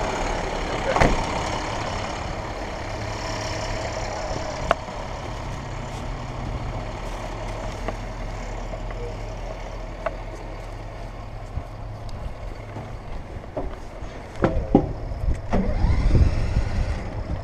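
Fire truck engine idling steadily, with a few sharp clicks and, near the end, a spell of louder knocks and clatter.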